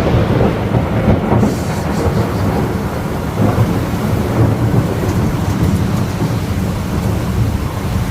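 Thunder rumbling loudly and continuously in a severe thunderstorm, deep and without a break.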